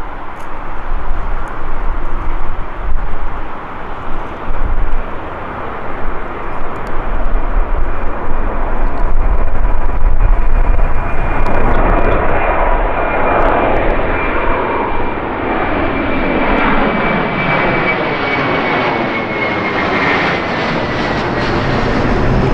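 Jet airliner engines running at takeoff power. The noise grows fuller about halfway through, with a sweeping, phasing sound and a faint high whine that slowly drops in pitch.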